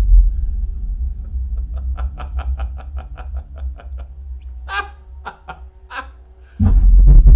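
Film soundtrack playing through a home-theater subwoofer system, with deep bass rumble underneath. A fast run of clicks, about five or six a second, is followed by three creature-like shrieks, then a heavy bass boom about six and a half seconds in.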